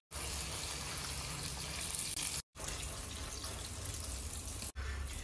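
Water poured from a small steel cup into a pot of frying jackfruit pieces, a steady splashing hiss. It breaks off twice with brief silences.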